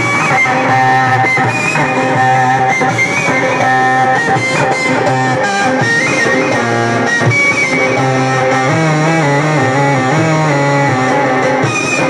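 Loud amplified instrumental music from a live Egyptian Sufi chanting (inshad) band, with no singing: an ornamented melody line over a steady, pulsing bass.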